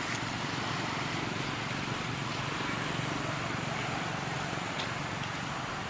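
Steady outdoor background noise: an even hiss with a low hum that swells in the middle of the stretch and fades again.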